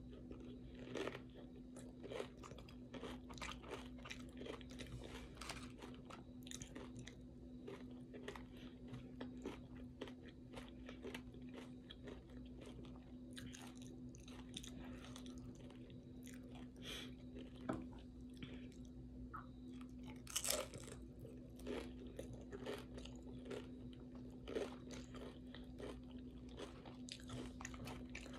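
A person chewing a mouthful of tortilla chips and taco salad, with many irregular crisp crunches.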